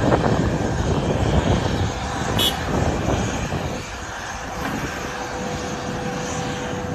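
Jet aircraft engines running, a steady rumble with a steady whine coming in a little past the middle.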